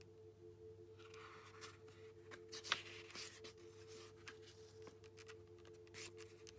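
A paper page of a hardback children's storybook turned by hand: soft rustling sweeps of the page, a sharp crisp click a little under three seconds in, and another short rustle near the end as the page settles flat.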